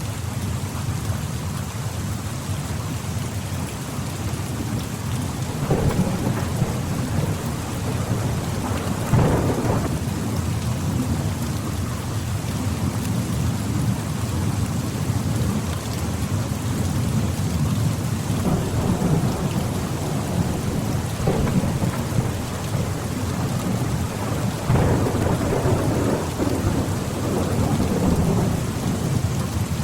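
Steady rainfall with low rumbles of thunder rolling in several times. The strongest rumbles come about nine seconds in and again near twenty-five seconds.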